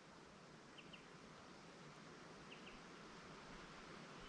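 Near silence: faint outdoor ambience, with two faint pairs of short, high chirps, about a second in and again past halfway.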